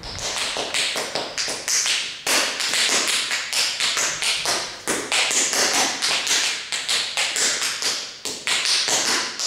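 Quick, irregular taps and slaps of a football being worked by a player's boots on a hard floor, several a second and carrying on without a break.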